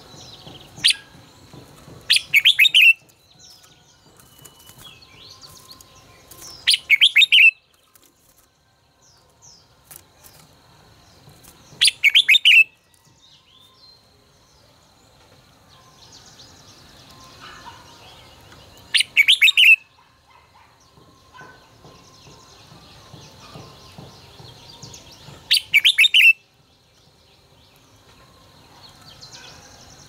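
Red-whiskered bulbul singing: five loud, short song phrases a few seconds apart, with soft chirps in between.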